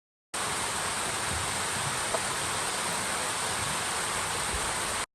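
Waterfall and stream rushing: a steady hiss of falling water that cuts in just after the start and cuts off abruptly near the end.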